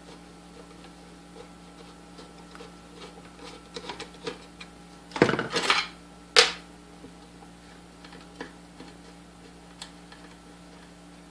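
Small metal clicks and clinks of a screwdriver and loose screws and parts being handled during motor disassembly, with a louder clatter about five seconds in and a sharp clack just after as something metal is set down on the workbench.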